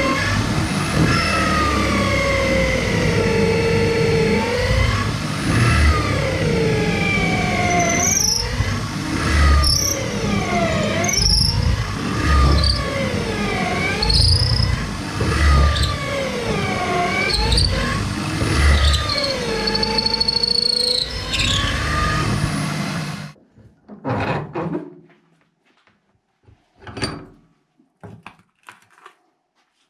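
A power tool working the knife's steel in repeated passes, squealing. Its whine dips and recovers about every second and a half, with a low thump at each pass. It stops abruptly near the end, leaving a few light knocks.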